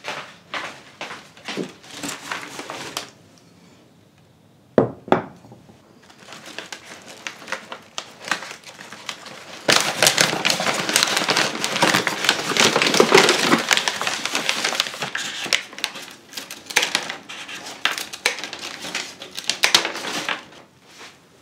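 The paper wrapping of a flower bouquet crinkling and rustling as it is handled and unwrapped, densest through the middle. There is a single sharp knock about five seconds in, and scissors snip through the stems near the end.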